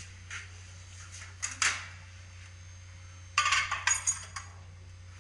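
A glass microwave bowl being set down inside a microwave oven: a few light, sharp clinks, then a quick run of clatters and clicks about three and a half seconds in.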